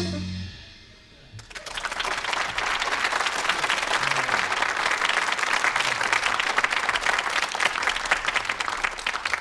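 The last piano and bass notes of a jazz piano trio die away, then, about a second and a half in, a live audience breaks into steady applause that lasts to the end.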